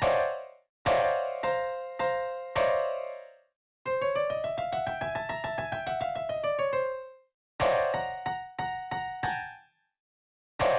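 Sampled piano in FL Studio playing a melody in short phrases with complete silences between them. The middle phrase is one long note that slides smoothly up in pitch and back down.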